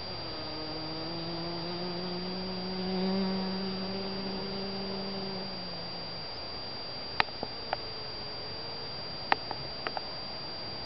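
Honeybee buzzing in flight close by, a steady wingbeat hum that swells about three seconds in and fades out after about six seconds. A few short sharp clicks follow in the second half.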